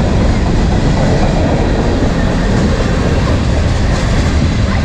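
Freight cars of a passing manifest train rolling by close at track level, their steel wheels running on the rails in a loud, steady rumble.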